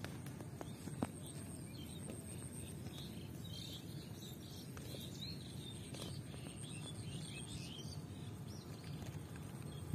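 Open-air background with a low steady rumble and small birds chirping on and off through the middle, and a single sharp click about a second in.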